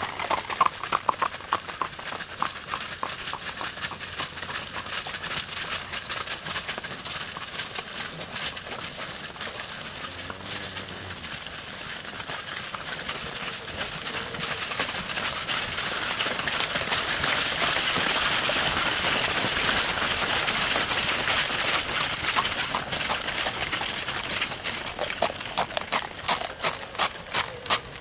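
Hooves of a herd of cattle clattering on a paved lane, thickening into a dense, louder clatter around the middle as the herd crowds past close by. Near the end, a horse's hooves walking on the tarmac in an even clip-clop.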